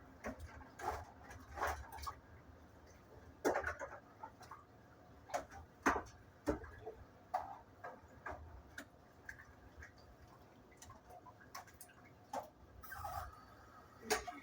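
Irregular light clicks and knocks, spaced unevenly, with a brief louder scraping clatter near the end.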